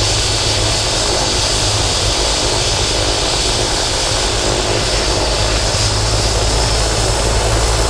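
Air rescue helicopter running on the ground: a steady high turbine whine over a low, rapid rotor beat.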